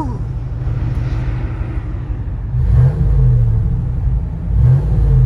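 Ram 1500 Hemi V8 with an aftermarket HPT camshaft running under way, heard from inside the cab. The engine note swells and bends in pitch twice, about three seconds in and again near the end.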